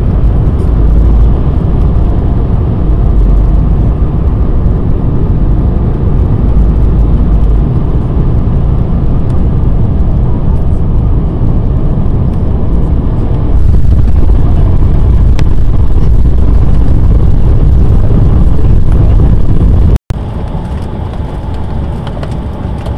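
Airliner cabin noise during landing: a loud, steady low rumble of engines and rushing air that grows louder about two-thirds of the way through. After a sudden break near the end it gives way to a quieter steady cabin hum.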